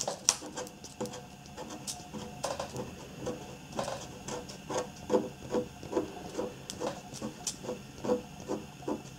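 A scratch card being scratched off: short, quiet scraping strokes repeated at about three a second.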